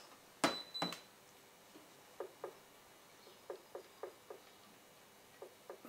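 Two sharp metallic clicks about half a second in, then faint, irregular light ticks, a few a second, from a wrench working a heated, rust-seized bolt on a car's air-conditioning compressor.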